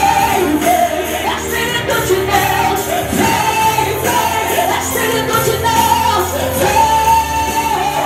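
A woman singing a Pentecostal worship song into a microphone, amplified over backing music with a steady bass line.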